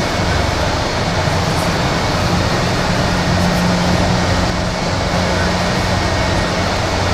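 Airliner jet engines running at taxi idle: a steady whooshing roar with a low hum underneath, the level constant throughout.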